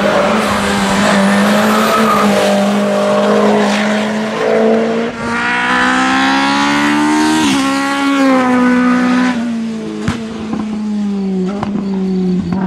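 Race car engine running at high revs. Its pitch climbs for a couple of seconds, dips sharply about seven and a half seconds in, then slowly falls.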